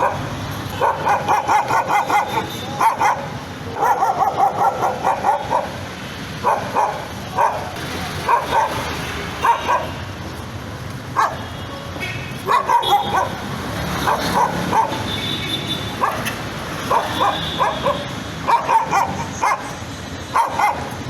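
A nervous dog barking in runs of quick, short barks, several a second, broken by brief pauses.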